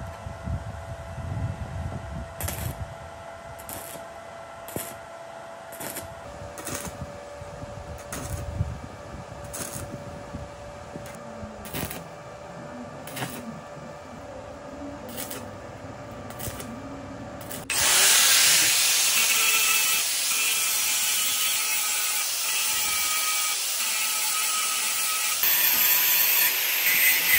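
Angle grinder grinding a steel square-tube frame: a loud, steady hiss that starts abruptly about two-thirds of the way in. Before it there are only faint, regular clicks about once a second over a low, steady hum.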